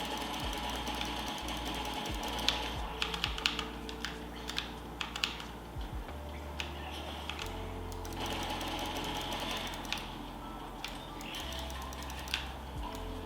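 Keys of a Tsunami MK-61 mechanical keyboard with Outemu switches clicking in short irregular runs over background music, busiest a few seconds in with a few more clicks near the end.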